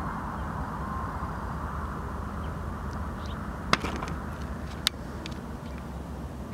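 Diesel freight locomotives, a green EMD SD60M among them, rumbling steadily as the train moves through the yard. Two sharp knocks about a second apart near the middle come from the camera tripod being handled.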